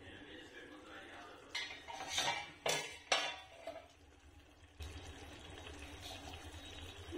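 Stainless steel lid lifted off a pan and set down, with a few loud metal clinks and scrapes about two to three seconds in.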